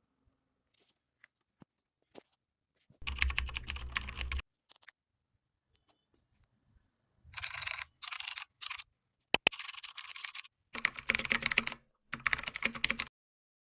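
Computer keyboard typing sound effect: rapid clicking keystrokes in about six separate bursts with short gaps between them, and a single sharp click near the middle.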